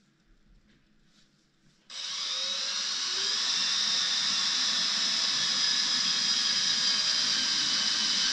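Cordless drill switched on about two seconds in and running steadily with a high whine, its pointed router bit milling open bubbles out of the freshly cured, still fairly soft epoxy resin.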